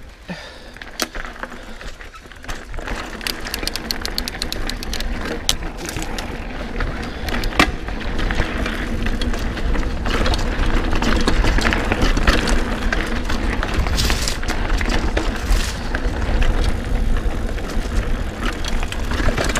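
Mountain bike ridden over a dirt singletrack trail: tyre noise and the bike rattling over the ground, with a steady low rumble and many sharp clicks, most densely a few seconds in. It grows louder after the first couple of seconds as the bike picks up speed on the trail.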